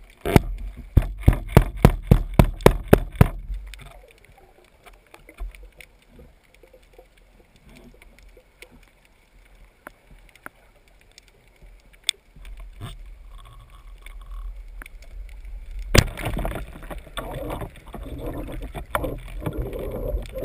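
Water sounds on a freediving spearfisher's camera. In the first three seconds there is a quick run of about a dozen sharp clicks, then a quiet stretch with a few single clicks. From about sixteen seconds in come loud splashing and gurgling water noises.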